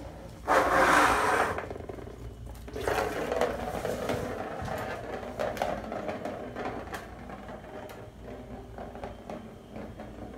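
Balls rolling round the plastic track of a circular cat track-and-scratcher toy, set going by a kitten: a loud rolling rush about half a second in, then a longer rattling roll from about three seconds in that slowly dies away.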